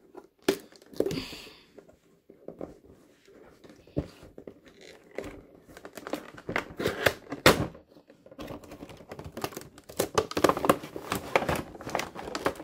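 Cardboard action-figure box being opened by hand, with sharp clicks and scrapes of the flaps, then the clear plastic tray and bag inside crinkling, busiest over the last few seconds.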